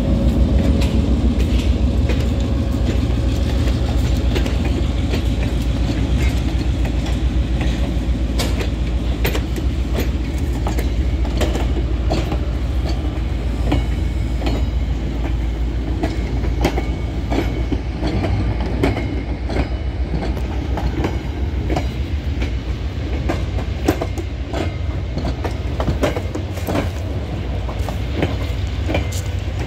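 Morristown & Erie diesel locomotive No. 23 and its passenger coaches rolling past close by: the locomotive's engine drone fades in the first few seconds, then the coaches' wheels keep clicking over the rail joints.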